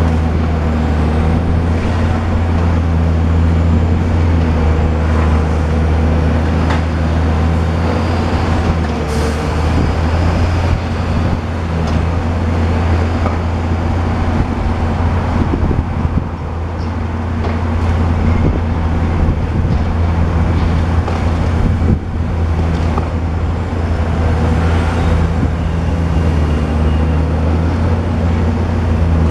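Caterpillar demolition excavator's diesel engine running with a steady low drone, working under load as its long-reach arm tears into a multi-storey house. Scattered crunching and clatter of breaking masonry and debris.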